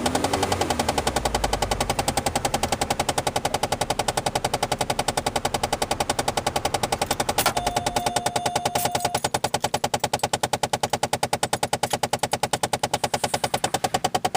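Rapid, even clicking, about ten a second, from an HVAC door actuator behind the dashboard of a 2007 Chevrolet Malibu LS, with one sharper click about halfway. The actuator's door is stuck, so its gears slip against each other: a failing mode-door or recirculation-door actuator.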